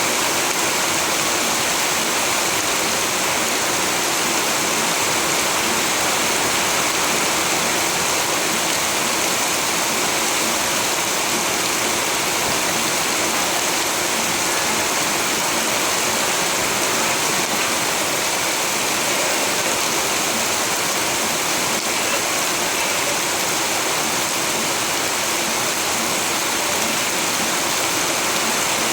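Steady rainfall, an even unbroken hiss with no single drops or gusts standing out.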